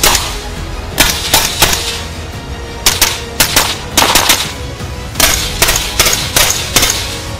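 Suppressed 5.56 AR-15 rifle firing about a dozen shots in quick strings of two or three, over background music.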